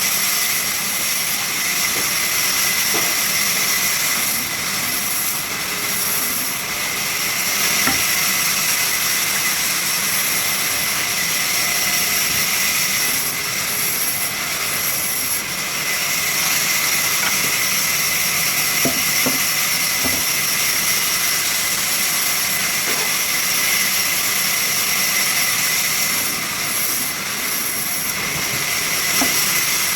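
Sawmill saw machine running steadily: a constant hiss with a steady high whine and a few light knocks.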